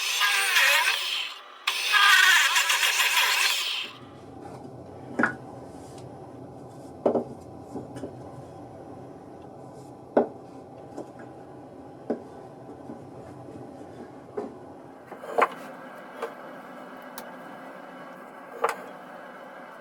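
Two long rasping strokes of a hand tool across wood, like filing or sanding, in the first four seconds. After that comes a faint steady hum, broken now and then by single light knocks.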